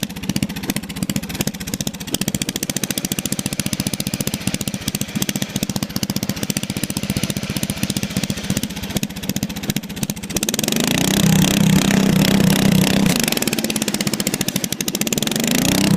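Riding lawnmower engine running steadily, then revved up about ten seconds in, dropping back briefly near the end before revving up again.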